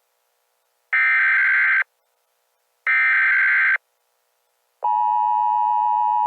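Emergency Alert System SAME header: two buzzy digital data-tone bursts, each about a second long and a second apart. The steady two-tone EAS attention signal starts about five seconds in.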